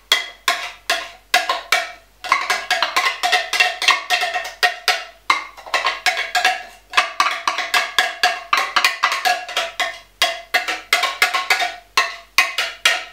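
Metal spoon knocking and scraping against a glass jar, several sharp ringing knocks a second, tapping the contents out into a bowl.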